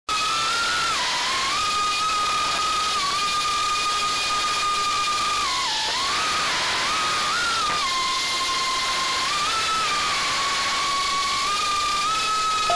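FPV quadcopter's electric motors and propellers whining, as picked up by the onboard camera, the pitch stepping up and down as the throttle changes, over a steady hiss of wind and air.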